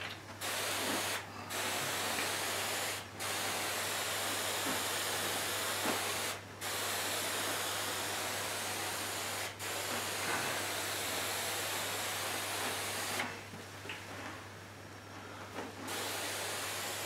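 Half-gallon pressurised pump sprayer misting warm water onto a ceiling in long continuous sprays, broken by brief pauses every few seconds and a longer pause of about three seconds near the end.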